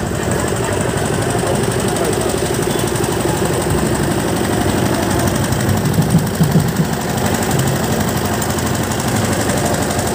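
Small pickup truck's engine running close by, a loud, steady, rapid clatter.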